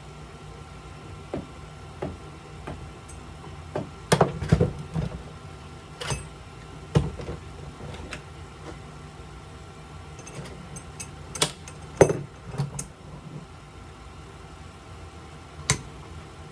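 Scattered clicks and knocks of hand tools and small parts being handled on a work surface, in clusters about four seconds in and again about twelve seconds in, over a steady low hum.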